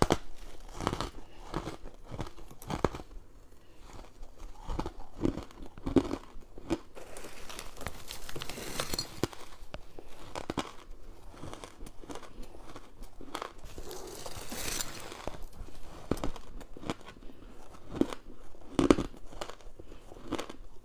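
Frost and crushed ice crunching in irregular crunches and crackles, as from biting and chewing, with a couple of louder, sharper crunches standing out.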